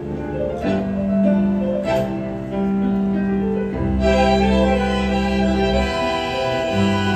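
Tango orchestra playing an instrumental passage with long held notes. The sound grows fuller and brighter about four seconds in.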